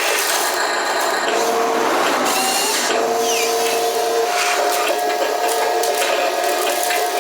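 Small electric gear motors of a model wheel loader and dump truck whining as they run, starting and stopping several times with small shifts in pitch, over a rattling, grinding hiss.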